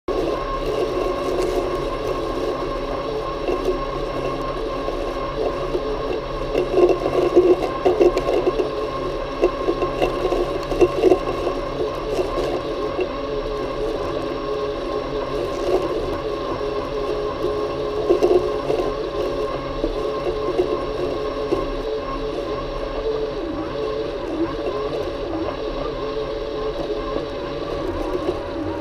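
Worx Landroid M robotic lawn mower running, its motors giving a steady whine, with irregular scraping and rattling as it moves over the lawn.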